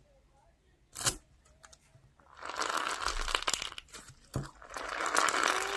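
Crinkling and crackling of something being handled close to the microphone, dense with small clicks, starting about two and a half seconds in after a single sharp click about a second in.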